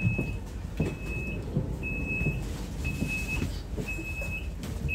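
Door warning signal of a Stadler FLIRT electric multiple unit: a high beep, each about half a second long, repeating about once a second, which warns that the doors are about to close. Low thumps of footsteps sound underneath.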